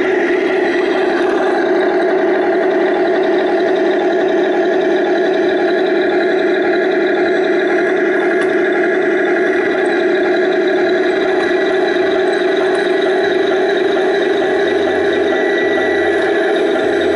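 Radio-controlled model King Tiger tank running: a steady, loud engine-like drone with a whir. A low pulsing comes in near the end.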